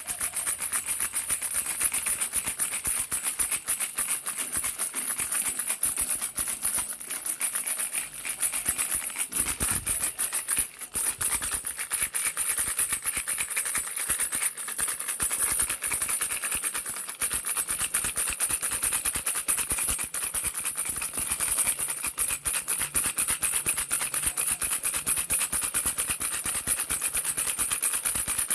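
A baby's rattle shaken steadily, a dense run of fast, crisp rattling clicks with no pauses.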